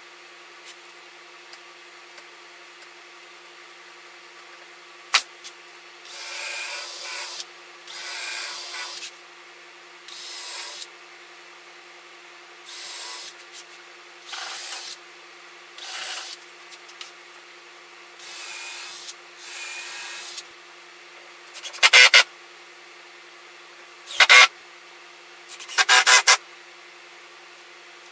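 Woodworking tool noise in repeated bursts of about a second each, spaced a couple of seconds apart. Near the end come several shorter, much louder bursts.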